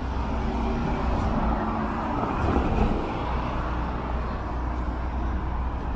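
Downtown street traffic: cars running past with a steady low rumble, one vehicle passing close and loudest a little under halfway through.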